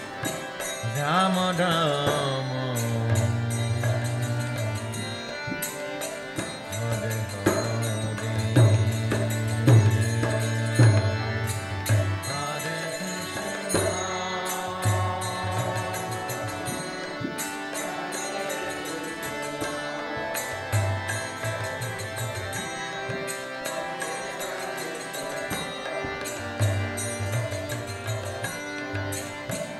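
Kirtan: Indian devotional music with hand-drum strikes over a sustained drone.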